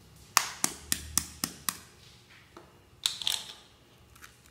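An egg tapped sharply about six times in quick succession against the rim of a plastic mixing bowl to crack its shell, followed about three seconds in by a short crackle as the shell breaks.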